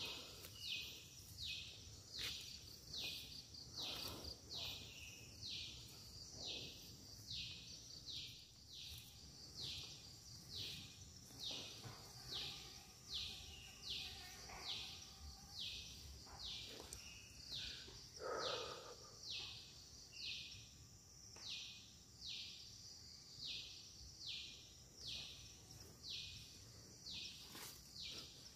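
Cicadas in a teak forest calling in a high, pulsing chorus: a buzzy pulse about once a second over a steady high hiss.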